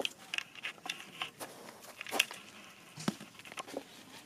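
Scattered light clicks and taps at irregular intervals from hand work with small grey sky-shot casings and a stick in a small tin of paste; the sharpest tap comes about two seconds in.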